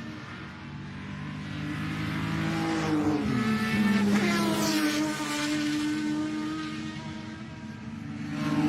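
Ferrari 250 GT SWB/C's V12 engine running hard on track, growing louder to a peak about four seconds in, its pitch dropping as it goes by, then fading. Engine sound swells again right at the end.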